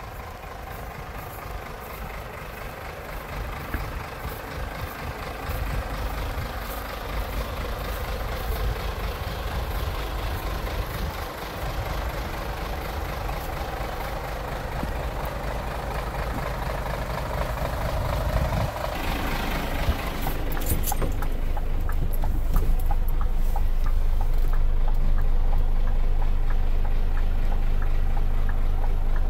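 Scania P410 truck's inline-six diesel idling steadily, growing louder as it is approached; about two-thirds of the way through the sound changes abruptly to a closer, fuller low hum, with a single click shortly after.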